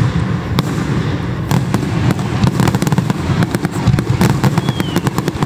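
Aerial fireworks bursting overhead: a low rumble of booms under sharp pops that become a dense, rapid crackling from about a second and a half in.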